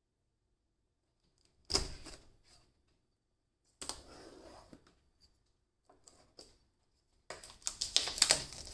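A knife slitting and scraping the plastic shrink-wrap on a cardboard product box: a few short crinkling scrapes with quiet pauses between them, then steady crackling and crinkling of the film near the end as it is torn loose.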